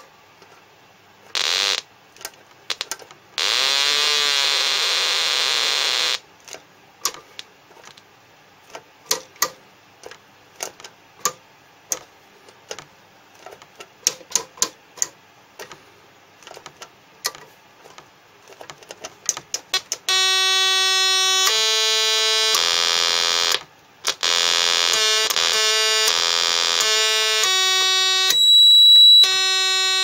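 Homemade electronic siren circuit sounding through its built-in speaker as its switches and knobs are worked: a warbling siren-like tone, then a stretch of irregular sharp clicks. From about two-thirds of the way in it gives buzzy electronic tones that jump from pitch to pitch, with a brief shrill high beep near the end.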